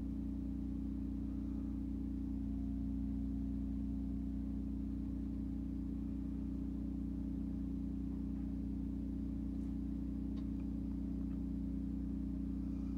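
Work truck engine running at a steady idle: an even, unchanging hum with a few low fixed tones.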